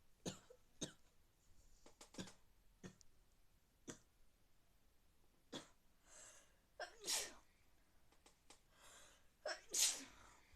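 A person with a cold sneezing twice, each sneeze preceded by an audible in-breath, the second one the loudest and near the end. A few short clicks come before the sneezes.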